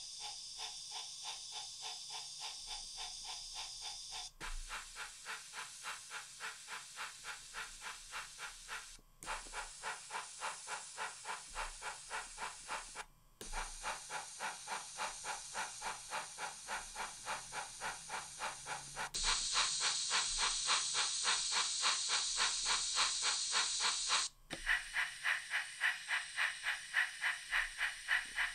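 Steam locomotive chuffing from a DCC sound decoder's Wheeltappers 1P sound file, played through a series of small model-railway speakers in turn. It keeps a steady beat of about three chuffs a second, and its tone and loudness change at each switch, about every four to five seconds, with a brief dropout between speakers. The section about two-thirds of the way in is the loudest and brightest.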